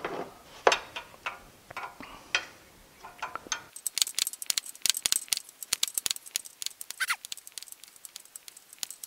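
Light, irregular metal clicking and tapping from a wrench working the thermal valve into the pressure washer pump's port. The clicks come quickly and densely from a few seconds in, with a short falling squeak about seven seconds in.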